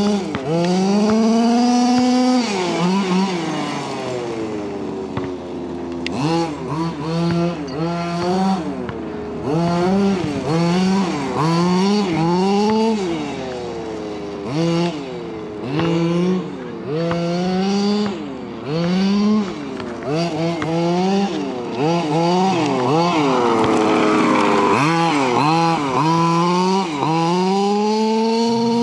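An HPI Baja 5SC RC truck's small two-stroke petrol engine revving up and down again and again as the throttle is opened and let off. Near the end it holds high revs for several seconds.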